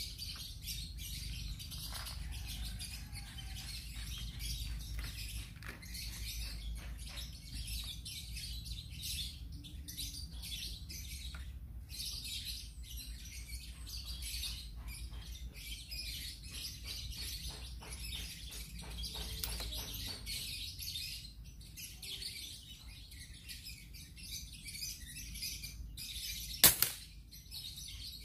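Birds chirping steadily, then near the end a single sharp shot from a GCMAG air rifle firing a pellet.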